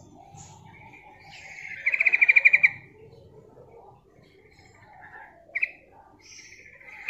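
Female yellow-vented bulbul calling: a fast, loud trill of about a dozen evenly spaced notes about two seconds in, a single short note later, and another trill starting at the very end.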